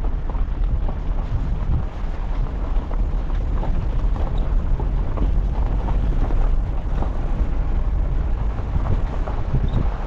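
Car driving on a rough gravel road: a steady low rumble from the tyres and engine, with many small crackles from stones under the tyres.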